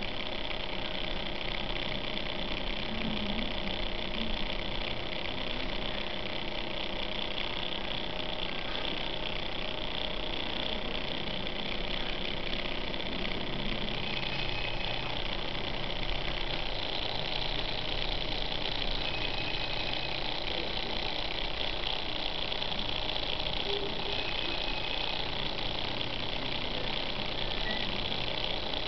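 Small electric motors of a three-motor laser light show projector running steadily, a constant mechanical hum that does not change.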